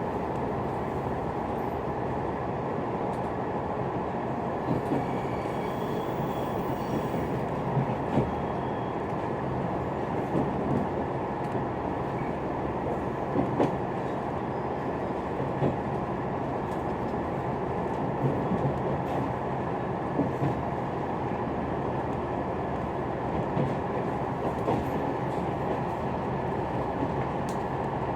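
Cabin noise of a KiHa 187 series diesel railcar running on the line: a steady rumble with occasional short knocks from the wheels.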